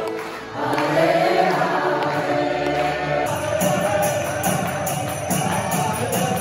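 Group singing over music. About three seconds in, it changes to a kirtan: a crowd chanting with a steady jingling percussion beat, about three strikes a second.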